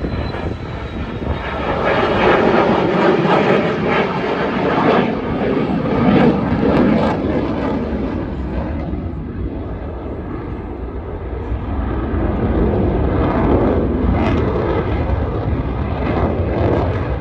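Fighter jet engine noise as the aircraft passes low, swelling loud, easing off, then swelling again near the end.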